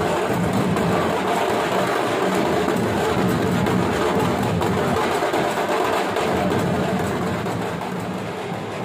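A group of large steel-shelled dhol drums beaten with sticks, played together in a dense, continuous rhythm without a break.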